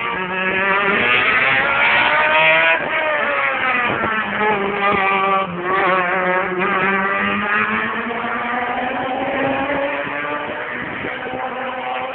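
Two 1000cc racing prototypes running at high revs on the circuit, engine pitch climbing and dropping back at gear changes several times, then a long steady climb.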